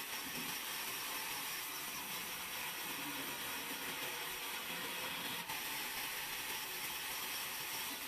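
Electric vertical band saw running and ripping a wooden plank as it is pushed through the blade, a steady, even noise.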